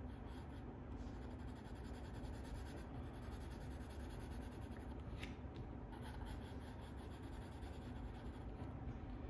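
Steady scratching of a drawing tool across sketchbook paper as strokes are laid down, over a low steady background hum.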